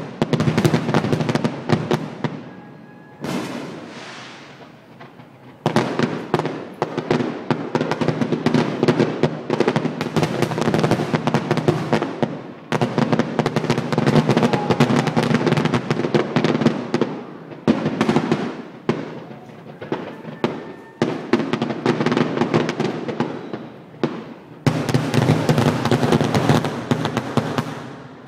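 Fireworks finale: aerial shells bursting in dense volleys of rapid bangs and crackling, in waves with short lulls between. The last volley stops sharply near the end.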